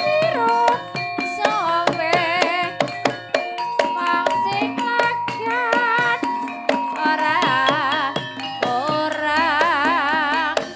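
Javanese Banyumasan gamelan music: struck metallophone notes and kendang hand-drum strokes, with a high singing voice wavering in wide vibrato about two seconds in and again near the end.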